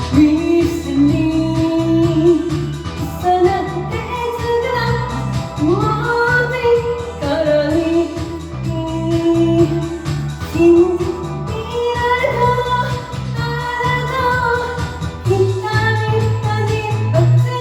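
A woman singing a Japanese pop song over a karaoke backing track with a repeating bass line.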